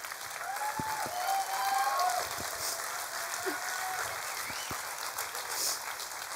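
A large audience applauding steadily, with a few voices calling out from the crowd.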